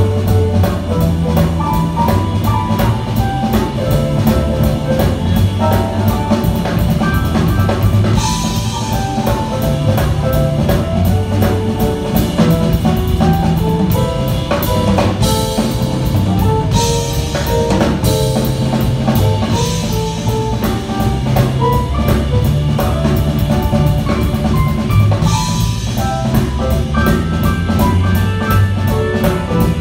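Live band playing an instrumental number: a drum kit keeps a fast, steady cymbal pattern with snare and bass drum, under keyboards and a low moving bass line. Louder cymbal washes swell up four times.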